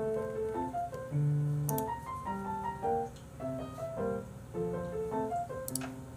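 Soft background piano music: a gentle melody of short, separate notes.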